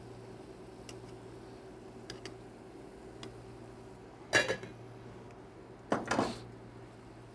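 Metal lid of a stainless steel pot clanking against the pot twice, about four and six seconds in, as it is lifted and set back on. A few faint light ticks come before, over a steady low hum.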